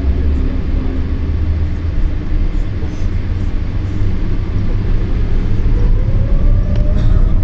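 Cabin noise inside a Boeing 787-8 airliner: a steady low rumble with the hum of the jet engines, and a faint whine that rises in pitch from about six seconds in as the engines wind up.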